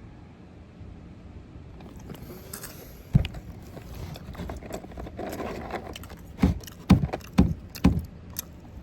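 Close-mic eating sounds: chewing and handling of food, with one hard thump about three seconds in and a run of four low thumps, roughly half a second apart, near the end.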